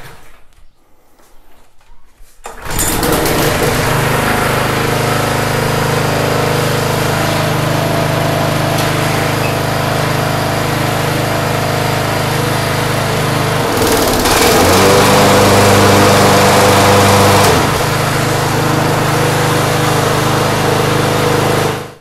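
John Deere JA65 walk-behind mower's four-stroke engine starts running about two and a half seconds in and runs steadily, now that it has been brought back from a no-start. In the second half its note shifts and grows louder for about three seconds, then settles. The engine cuts off just before the end.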